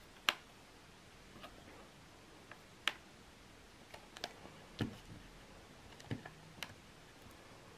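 Faint, irregular clicks and light knocks of a small precision screwdriver turning a screw into the plastic case of a Toshiba KT-4549 Walkman.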